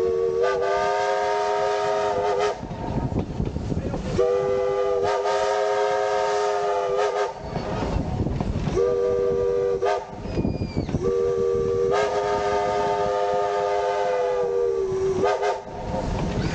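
Clover Valley Lumber Co. #4's chime steam whistle blowing close up in four blasts (long, long, short, long), the standard grade-crossing signal. The locomotive's running noise fills the gaps between blasts.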